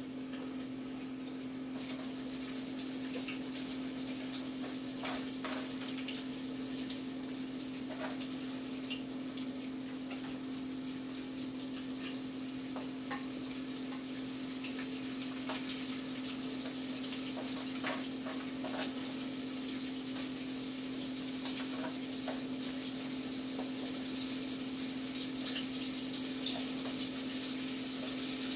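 Fish frying in hot oil in an electric deep fryer, a steady sizzle that grows slightly louder toward the end. Occasional light clicks of handling sound over it, and a steady low hum sits beneath.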